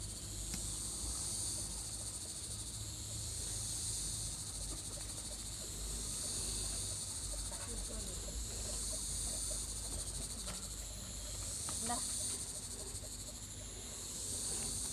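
Lentil-batter bara (batuk) deep-frying in hot oil: a steady sizzle that swells and eases every few seconds.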